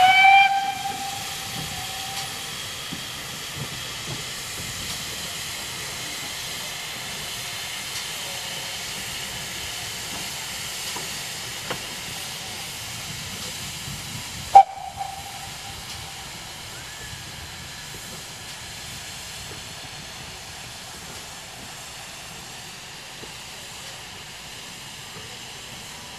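GWR 5700-class pannier tank locomotive 3650 sounding its steam whistle. There is a short blast at the start and a very brief sharp toot about halfway through, over a steady hiss of steam.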